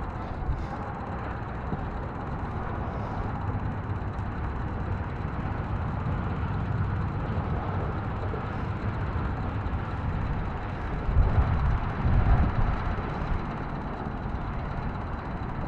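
Steady drone of a boat's motor at trolling speed, with water and wind noise on the microphone; gusts of low rumble come in briefly about eleven and twelve seconds in.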